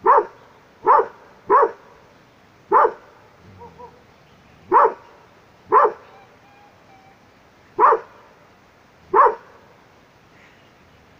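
A dog barking: single short barks, eight in all, repeated at uneven gaps of about one to two seconds.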